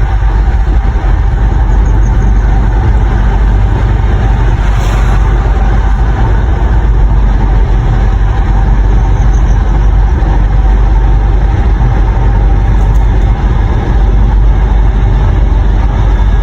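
Loud, steady jet noise from a Boeing 727-200's three Pratt & Whitney JT8D low-bypass turbofan engines running, with a faint whine above the rumble.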